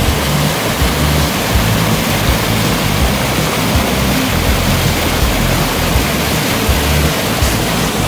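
Stream water cascading over boulders below a tall waterfall, heard close up: a loud, steady rush of white water with an uneven low rumble.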